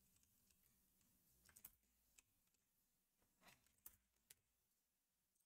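Near silence broken by a handful of faint, irregular clicks of typing on a computer keyboard.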